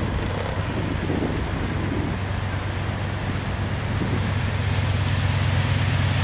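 Diesel locomotive engine of an approaching freight train, a low steady drone that grows louder about four seconds in, with wind on the microphone.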